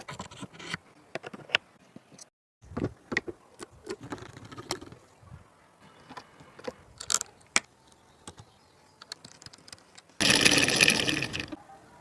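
Small hard parts clicking and clattering as they are handled, then near the end a homemade mini scroll saw's small motor and blade mechanism runs loudly for about a second and a half before stopping.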